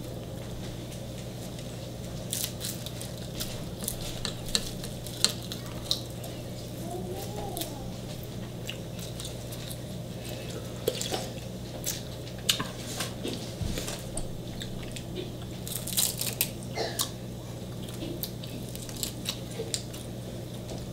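Close-up eating sounds: spoons and chopsticks clicking against dishes and the metal hotpot, with chewing and the crunch and squish of food, as scattered short clicks over a steady low hum.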